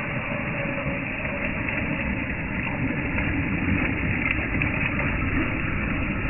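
Electric RC scale crawler wading through a muddy puddle, water splashing around its wheels over the steady running of its drivetrain, getting a little louder as it comes closer.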